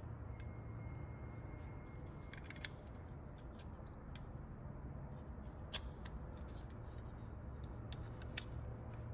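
A few sharp metallic clicks and light rattles as a rusty door latch assembly is handled and worked out of a 1975 International Scout II's steel door, over a low steady hum.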